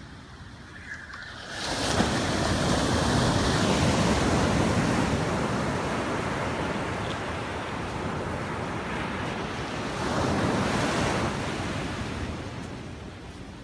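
Ocean surf breaking and washing up a sandy beach: the rush builds suddenly a couple of seconds in, holds, swells again with another wave near the end and then fades.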